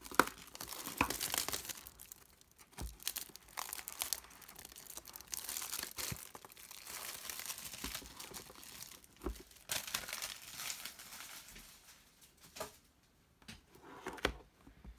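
Clear plastic wrapping being torn and crinkled off a cardboard box, in quick irregular crackles and rustles with sharp clicks, easing to a few soft taps and handling sounds near the end.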